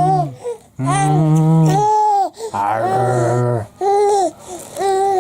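Young baby cooing and babbling in a string of drawn-out vocal sounds, each held for up to about a second.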